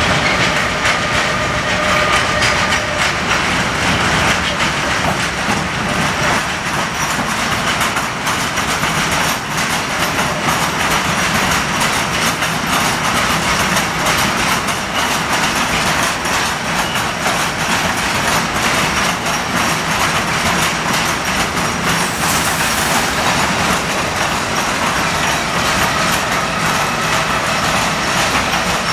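Long freight train of open box wagons rolling steadily past, with rapid clicking of the wheels over the rail joints.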